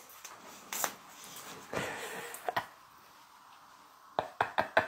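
Faint rustling and scattered light clicks of handling, with a quick run of about half a dozen sharp clicks near the end.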